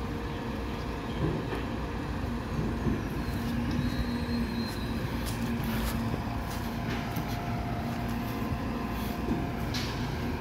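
Six-cylinder diesel engine of a MAN TGM 26.340 side-loader recycling truck running steadily at idle, with a steady hum and a few light knocks.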